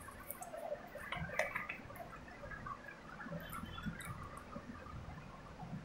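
Faint background with scattered light clicks and ticks, the strongest about a second and a half in.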